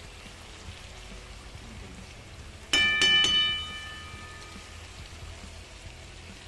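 Masala gravy simmering and bubbling in a metal kadhai, a steady patter. A little under three seconds in, a metal spatula is rapped three times in quick succession on the pan, which rings out and dies away over about a second and a half.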